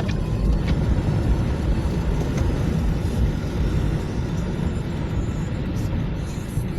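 Steady low rumble of a car driving, engine and road noise, easing slightly toward the end.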